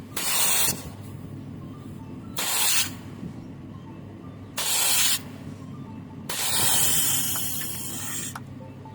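Four bursts of spray hiss as R141b flushing solvent is blown through the air conditioner's copper refrigerant lines. The last burst is the longest, about two seconds. This is the line flush done before a new compressor goes in.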